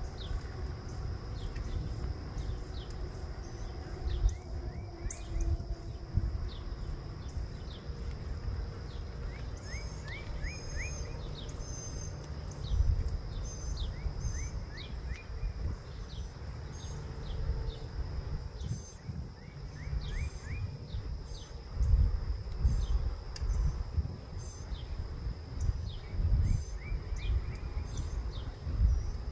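Early-morning outdoor ambience: birds calling, with short phrases of three or four quick rising notes repeated every few seconds over scattered short high chirps, and a steady high insect drone underneath. The loudest part is a low, uneven rumble that swells several times.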